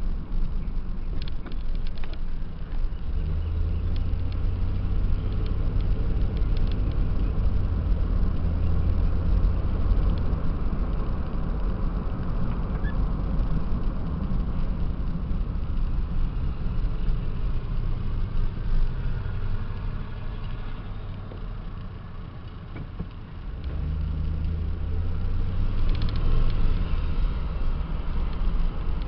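Car engine and road noise heard from inside the cabin while driving at a steady pace. The low engine hum fades away for a few seconds about two-thirds through, then picks up again.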